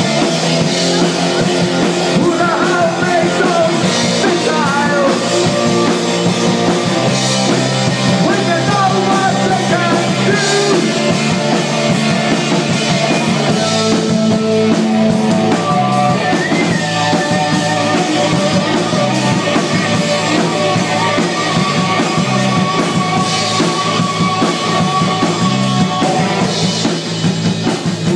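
Live rock band playing a post-punk song: electric guitar, bass guitar and drums, loud and continuous.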